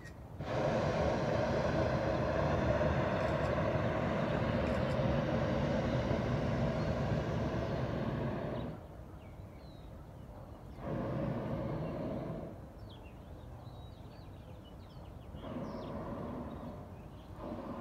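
Hot air balloon's propane burner firing: one long blast of about eight seconds, then two shorter blasts of about two seconds each, each switching on and off sharply.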